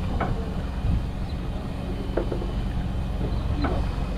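Fishing boat's engine running steadily: a low, even rumble, with a few short knocks about two and four seconds in.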